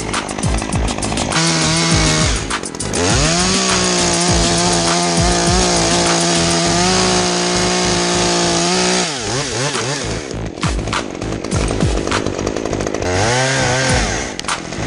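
Two-stroke chainsaw idling, then revved up about three seconds in and held at steady high revs for about six seconds before dropping back to idle, with a second short rev near the end.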